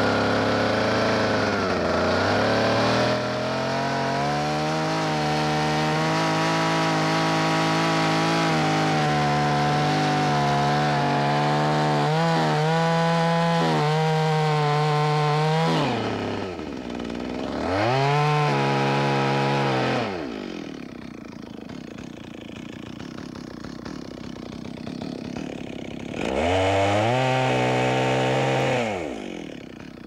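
Two-stroke chainsaw cutting at full throttle into a large tree trunk, making the level gunning cut of a conventional undercut. About sixteen seconds in it drops to idle, then is revved up briefly twice with idling between, and falls back to idle near the end.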